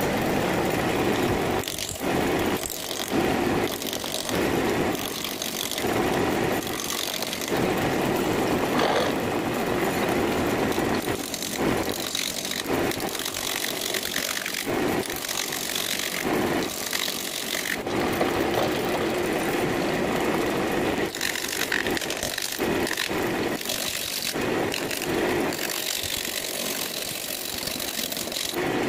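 Wood lathe spinning a rough, bark-covered cherry branch while a gouge rough-turns it: an uneven cutting noise that comes and goes in short passes as the tool bites into the out-of-round wood, over the lathe's running.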